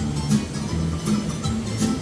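Guitar music with a steady beat playing from an Ion Aquaboom X floating Bluetooth speaker in a hot tub, heard over the steady rush of the hot-tub jets.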